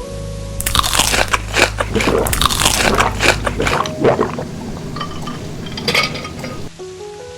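Close-up eating sounds: a person biting into and chewing crunchy food in a dense run of crisp crunches, starting about half a second in and easing off near the end.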